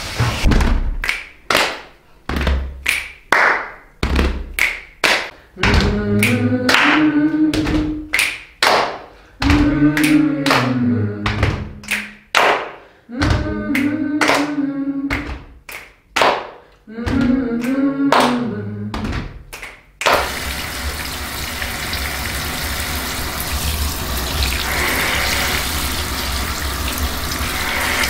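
Dramatic music of sharp, quickly repeated hits under a low tone that swells and falls, cutting off suddenly about two-thirds of the way through. A shower then runs with a steady hiss of spraying water.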